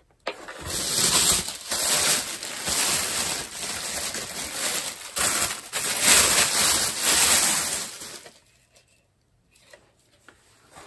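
Packaging rustling and crinkling as it is handled in and around a cardboard box, stopping about eight seconds in.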